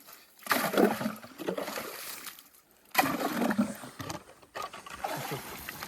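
Ice chips and water sloshing in a freshly drilled ice-fishing hole as the hole is cleared out, in three bursts a second or two apart.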